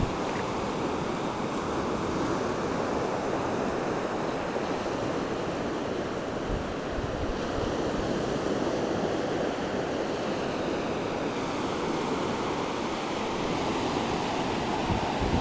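Ocean surf: a steady rush of breaking waves washing up the shore, swelling and easing slowly.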